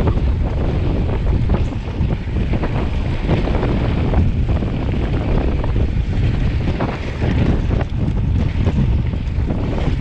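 Wind buffeting the microphone with a steady rushing hiss and scattered light knocks, as heard while moving fast downhill.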